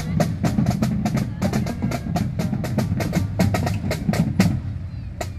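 Marching drumline of Yamaha snare drums and tenor drums playing a fast, rhythmic street cadence of sharp stick strokes, which stops about four and a half seconds in, with one last stroke near the end.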